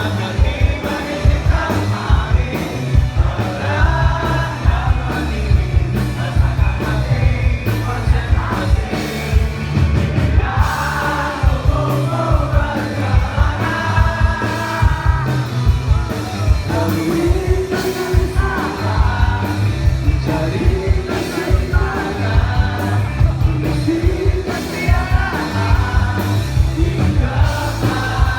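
Live indie rock band playing, with a sung lead vocal over drums, bass and guitars.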